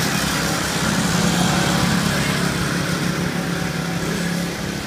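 Go-kart's small single-cylinder gasoline engine running steadily at speed around the track, a steady buzzing drone that drops a little in level near the end as the kart pulls away.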